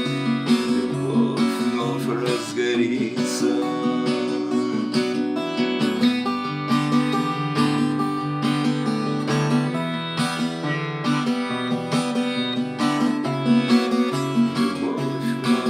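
Instrumental music led by acoustic guitar, picked and strummed at a steady level, with no singing.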